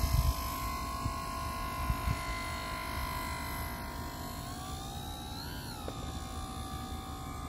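Steady high whine of a 1/10-scale RC pontoon boat's outboard drive motor, rising in pitch and falling back about five seconds in. A few low thumps in the first two seconds.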